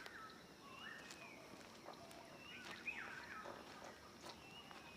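Faint animal calls: short chirps that glide up and down in pitch, one or two a second, over a soft outdoor hiss.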